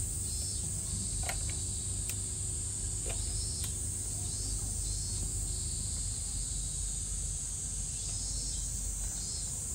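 Steady high-pitched insect chorus with a slow pulsing shimmer, over a low background rumble, with a few faint clicks in the first few seconds.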